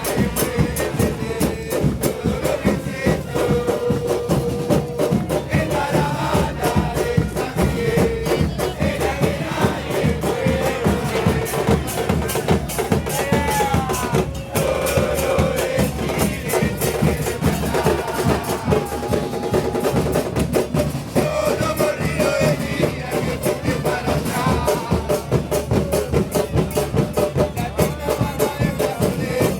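Football supporters in the stands singing chants together over a steady, fast beat of drums.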